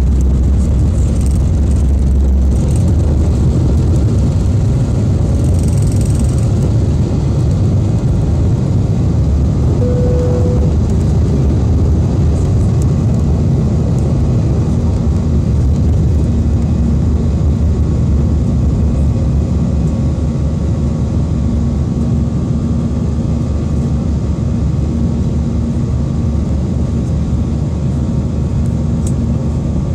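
Airbus A320 jet airliner taking off, heard inside the cabin over the wing: a loud, steady engine and air noise. A deep rumble eases about two and a half seconds in, a brief tone sounds about ten seconds in, and a steady hum joins from about sixteen seconds on.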